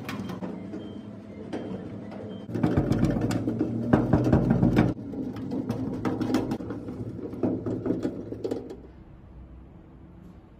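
Mechanical whirring and clicking as cabinet hardware is worked on, loudest between about three and five seconds in, then quieter near the end.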